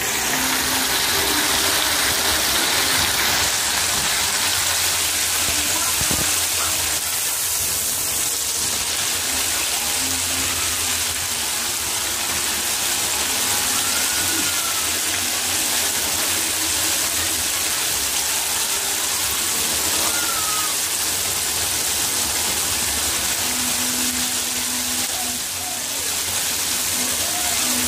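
Breaded shrimp deep-frying in hot oil, the oil bubbling and sizzling steadily.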